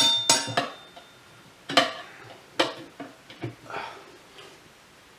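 Metal tire spoons clinking and knocking against a motorcycle wheel rim while a stiff tire is levered on by hand: a quick cluster of ringing clinks at the start, then single knocks about a second apart.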